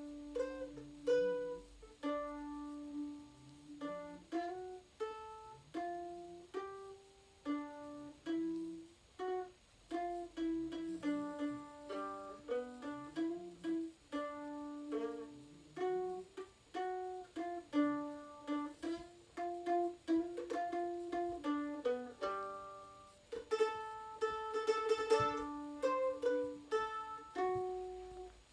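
Solo mandolin playing a melody, single plucked notes that fade quickly, with a stretch of fast repeated picking near the end.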